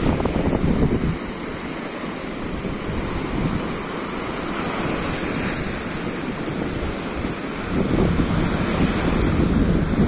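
Baltic Sea surf: small waves breaking and washing up a sandy shore in a steady rush. Wind buffets the microphone with a heavy low rumble for about the first second and again near the end.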